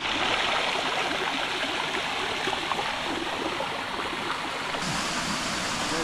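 Steady rushing water of a mountain-stream waterfall.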